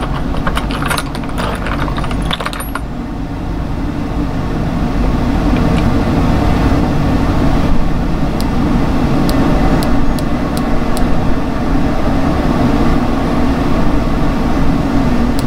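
A run of about eight small, sharp clicks from the windage adjustment of a TruGlo red dot sight being turned, over a loud steady low hum. A few lighter clicks and rattles of handling near the start.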